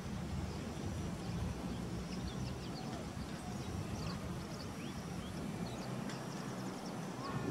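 Outdoor ambience: a steady low rumble with many faint, short high chirps scattered through it. The cat makes no sound.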